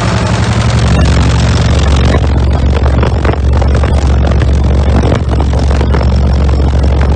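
A car audio system of ten Sundown Audio Team NEO 18-inch subwoofers playing the bass drop of a track at extreme level: deep, sustained bass notes with a harsh crackling distortion at the open car window. The hissy crackle thins out about two seconds in while the bass holds on.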